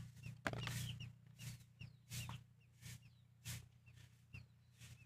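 Newly hatched Muscovy ducklings peeping: short, high chirps that fall in pitch, repeated about every half second.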